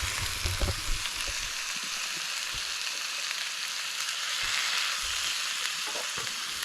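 Beef mince and browned onion sizzling steadily in hot oil in a frying pan, with a few soft knocks in the first second or so.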